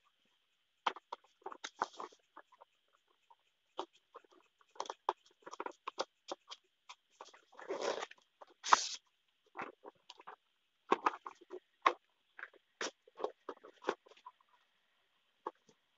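A small cardboard product box handled by hands: scattered taps, clicks and scrapes of card against fingers and a bedspread, with a longer rub about eight seconds in and the loudest sharp click just after.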